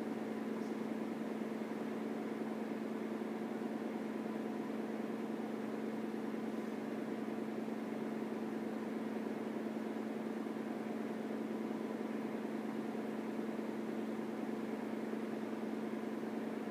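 A steady mechanical hum with one constant low tone and its overtones, unchanging throughout, like a small electric motor running.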